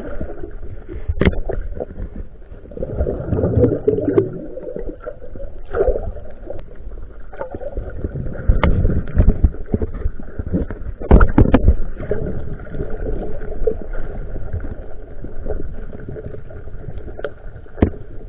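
Muffled underwater noise picked up by a submerged camera: a low rumble of moving water with a faint steady hum, broken by several sharp knocks, two close together about eleven seconds in.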